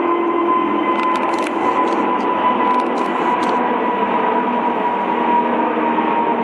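Airbus A380's four turbofan engines at takeoff power as the airliner climbs out overhead: a loud, steady roar with a high whine that sinks slightly in pitch.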